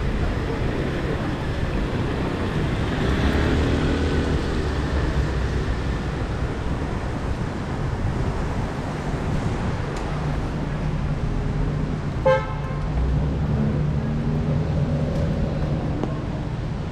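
Steady city street traffic rumble, cut by one short vehicle horn toot about twelve seconds in, the loudest sound in the stretch.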